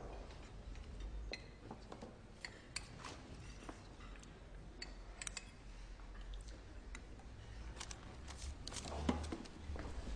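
Spoon clinking and tapping against a glass dessert dish: a scatter of light, sharp clinks over a low steady hum, with a louder knock near the end.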